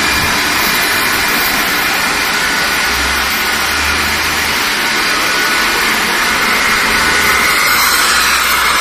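Campbell Hausfeld belt-driven rotary screw air compressor running and loading: a steady, loud machine noise from the motor, the screw airend and the cooling fan, with a few steady whining tones. Near the end a hiss of air grows stronger.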